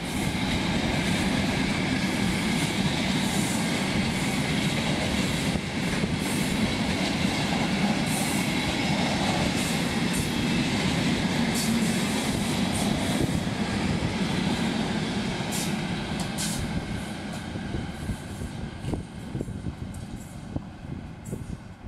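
Loaded timber freight train, flat wagons stacked with logs, rolling past on steel wheels: a steady loud rumble and clatter with a high ringing squeal from the wheels. The noise fades away over the last several seconds as the end of the train passes.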